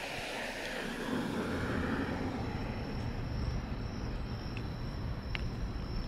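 A road vehicle passing, its noise swelling and fading over the first two seconds, then a low rumble. A steady high cricket trill runs underneath.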